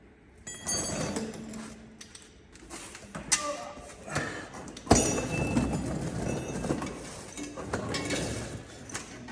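Metal exhaust parts and tools being handled during fitting: clinks, scrapes and knocks, with a ringing metallic clink soon after the start and a sharp knock about five seconds in.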